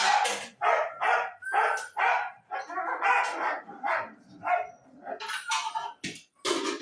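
Dogs barking in a rapid, unbroken run, about two to three barks a second.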